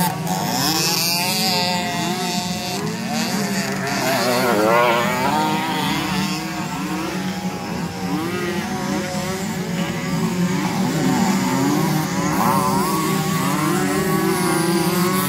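Several small 50 cc two-stroke bike engines revving hard in deep mud, their pitch rising and falling over and over above a steady low drone.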